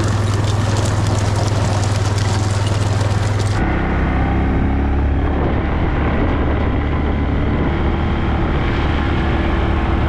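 Four-wheeler (ATV) engine running steadily under way. A rushing hiss lies over it for the first few seconds, then stops abruptly, and the engine hum settles lower.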